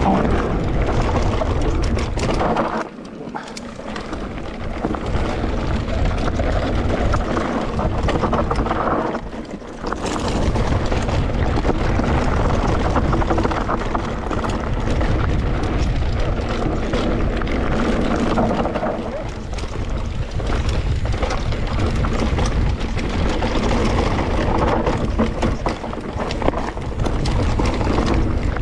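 Wind rushing over the microphone and an electric mountain bike's tyres rolling over loose rock and gravel on a fast descent, with the bike rattling. The noise drops briefly about three seconds in and again near ten seconds.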